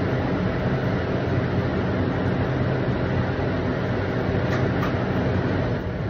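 Cooling fans of a stand-up red-light therapy booth running with a steady whooshing hum, dipping briefly near the end as the red lamps switch off.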